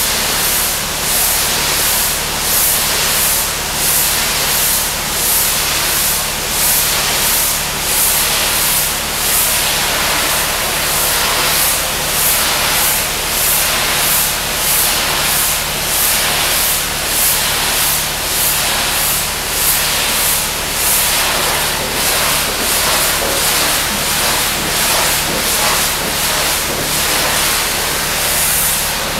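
Pressure washer spraying: a steady loud hiss of high-pressure water that swells and fades evenly about one and a half times a second, over a steady low hum.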